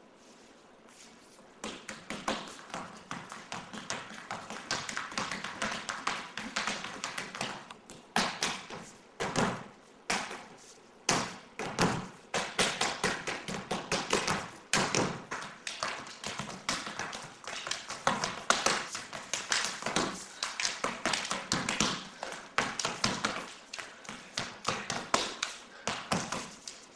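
Rapid, irregular tapping and clicking, several strikes a second with occasional louder knocks, starting about a second and a half in.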